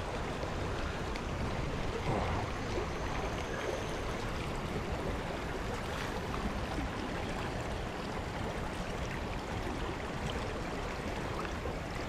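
Shallow river water running steadily over rocks in a riffle.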